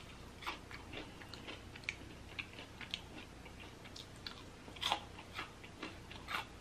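A person chewing fried food close to the microphone: faint, irregular small clicks and crunches, the loudest about five seconds in.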